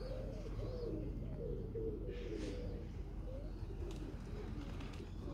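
Domestic pigeons cooing, several calls overlapping continuously.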